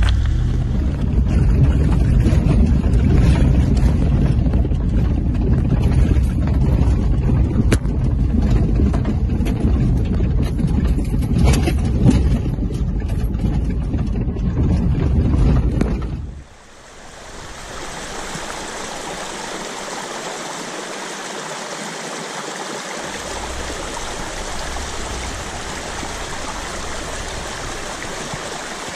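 Heavy low rumble of a vehicle driving a rough gravel forest road, with wind buffeting the camera microphone and a couple of sharp knocks. About sixteen seconds in it cuts to the steady rush of a rocky creek.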